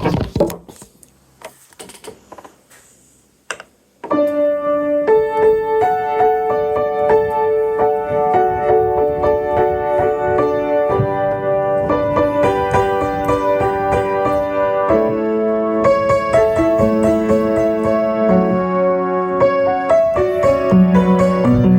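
A few faint clicks and knocks, then about four seconds in a piano starts playing slow, sustained chords of a worship song arrangement, the bass moving lower near the end.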